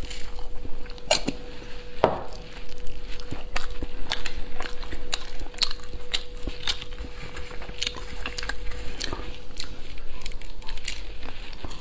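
Crisp crackles and crunches of deep-fried skewered small birds being handled, torn apart and bitten, picked up close by a clip-on microphone. A faint steady hum runs underneath.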